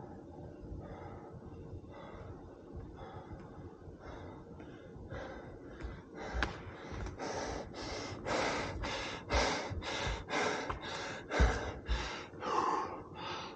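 A man breathing hard and out of breath after a basketball game. His breaths are faint at first and become loud, heavy pants about twice a second in the second half, with a few low thuds.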